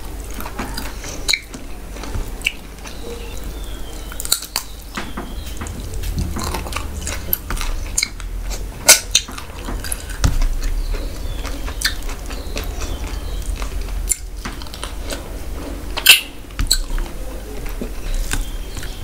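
Close-miked eating sounds: fingers squishing rice and curry, and wet chewing, with scattered sharp clicks and smacks.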